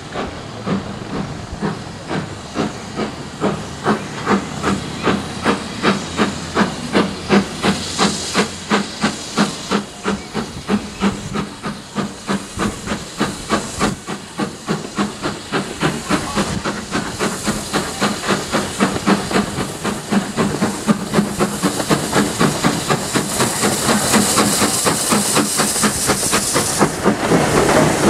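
Steam locomotive pulling away with a train, its exhaust beating in an even rhythm that starts at about two beats a second and quickens, over a steady hiss of steam. The hiss grows louder near the end as the locomotive draws close.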